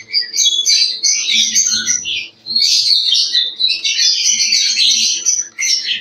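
Flock of lovebirds chattering and squawking continuously in shrill, high calls, with a brief lull about two and a half seconds in.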